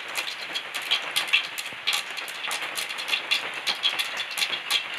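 Mustard seeds popping and crackling in hot coconut oil in an aluminium pot, many sharp irregular pops a second over a faint sizzle. This is the tempering step: the oil is hot enough for the seeds to burst.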